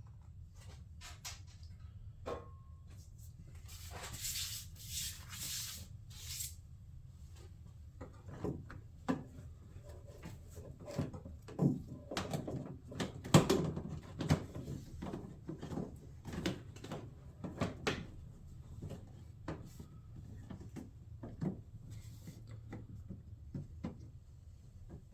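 Scattered clicks, taps and knocks of plastic trim clips and shroud parts being handled and worked free by hand, with a burst of rustling about four to six seconds in.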